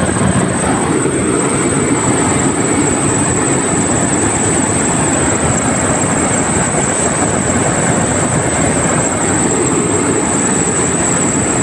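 Car engine running with a loud, steady, rapid clatter, the kind of knocking the engine is being checked for. A thin high whine runs steadily over it.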